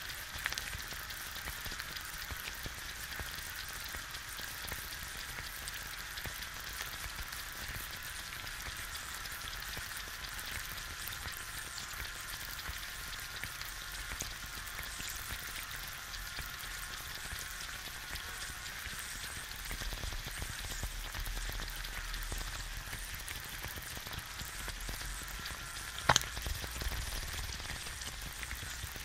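An egg frying in a pan: a dense, steady crackle and sizzle of popping fat bubbles. One sharp, louder pop comes near the end.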